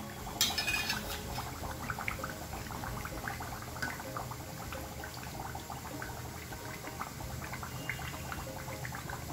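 Hot oil sizzling steadily with many small crackles as momos deep-fry in an iron kadhai. A brief louder hiss comes about half a second in.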